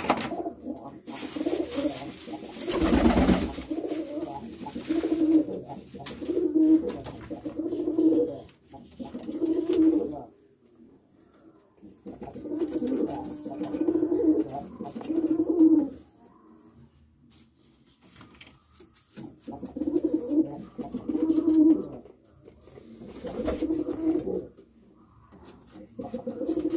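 Domestic pigeons cooing in a small brick loft: repeated low cooing phrases in several bouts with short pauses between. A loud rushing noise about two to three seconds in.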